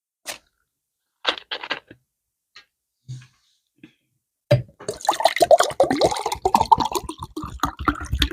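Close-miked wet mouth sounds of eating fufu with okra soup: a few short smacks, then from about four and a half seconds a dense, loud run of squelching chewing and slurping.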